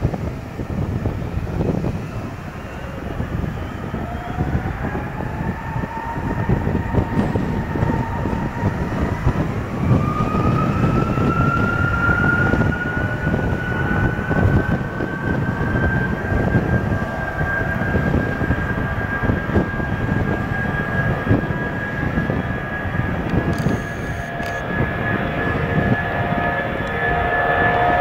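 Boeing 757 jet engines spooling up: a whine that rises in pitch from about four seconds in, then holds steady over a low rumble.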